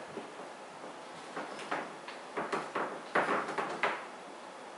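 A cluster of short scrapes and light taps between about one and four seconds in, from kittens scampering and playing on a hardwood floor.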